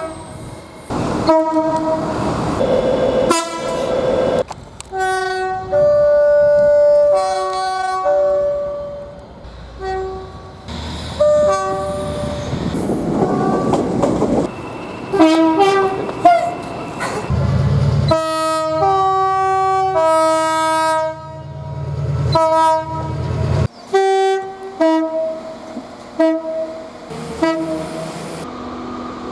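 British train horns sounding in quick succession, many separate recordings cut one after another. Most are two-note high-low blasts, some short toots and some held for a second or more. A train's low running rumble sits under several of them near the middle.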